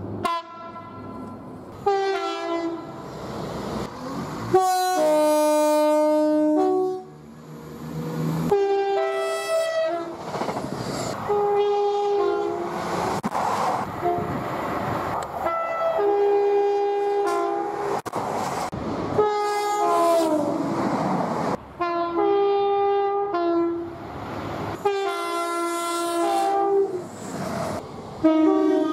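A string of train horn soundings from passing trains, many of them two-tone horns giving a pair of notes at two pitches. The longest and loudest is a sustained blast about five seconds in. Between the horns there is the running noise of trains on the track.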